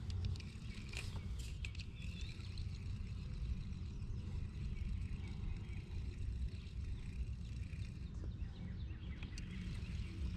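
Outdoor ambience: a steady low rumble of wind on the microphone, faint birds chirping, and a few light knocks in the first two seconds.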